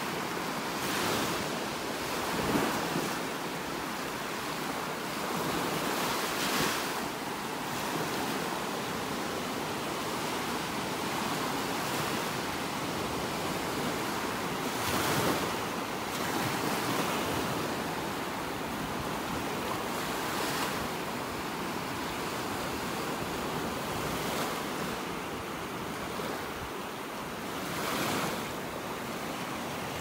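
Surf washing onto the beach, with wind buffeting the microphone in several brief gusts.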